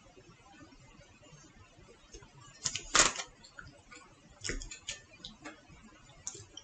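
A few sharp clicks and knocks of things being handled and set down on a tabletop, the loudest about three seconds in.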